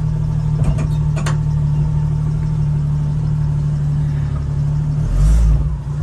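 1975 AM General DJ5-D postal Jeep's engine running steadily under way, a steady low hum, with a couple of light clicks early and a brief loud low thump about five seconds in.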